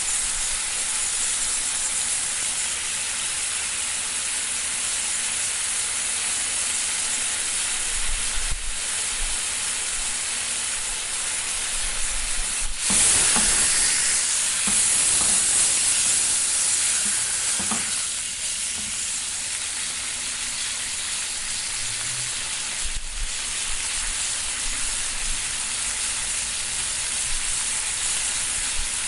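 Steak sizzling in a frying pan: a steady, high hiss of fat spitting. About halfway through the sizzle surges louder for several seconds, and a couple of faint knocks come before and after.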